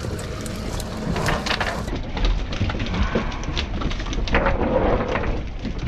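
Monofilament cast net being gathered and thrown from a boat: a busy patter of small clicks and spatter like rain as the lead line and mesh clatter and shower into the water, over a low rumble of wind on the microphone.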